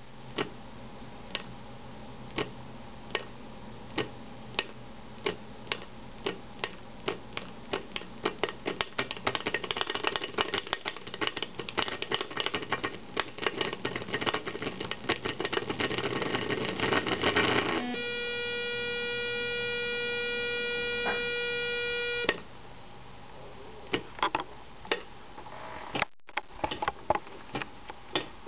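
Electromagnet coil under a stack of disc magnets, pulsed by an Arduino through a MOSFET, clicking each time it jumps. The clicks start about one a second and speed up into a fast rattle. About two-thirds of the way in they merge into a steady buzzing tone for about four seconds as the coil and magnet work as a speaker, then separate clicks start again.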